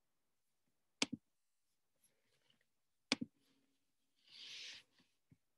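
Computer mouse clicking: two sharp clicks, about one second in and again about three seconds in, each a quick pair of strokes. A brief soft hiss follows about four seconds in.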